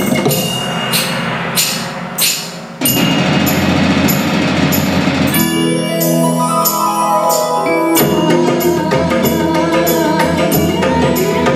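Live band playing a song: a run of drum and cymbal hits in the first few seconds, then the full band with a stepped melodic line over a sustained backing.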